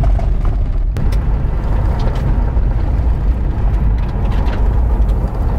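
Car driving on a rough dirt road: a steady, loud low rumble of road and wind noise.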